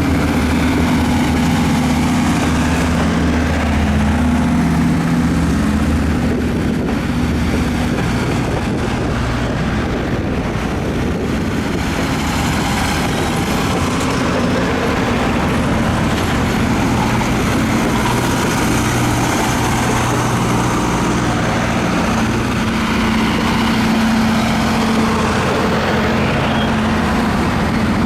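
Diesel locomotive engine running with a steady low drone; its pitch shifts a few times, around 8, 14 and 22 seconds in.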